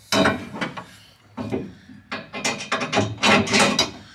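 Irregular knocks and clatters of hard parts being handled, about a dozen sharp strikes over four seconds, bunched most thickly in the second half.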